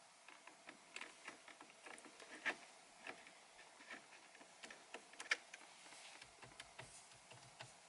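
Faint, irregular small clicks and ticks of a screwdriver and a metal paddle shifter being worked into place behind a car's steering wheel, with two sharper clicks about two and a half and five seconds in.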